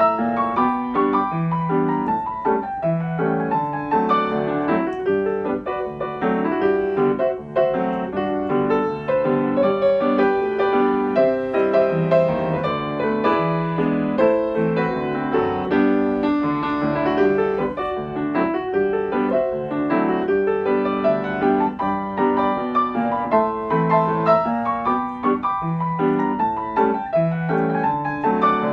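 Solo grand piano playing ragtime, with a continuous stream of quick notes over an alternating bass.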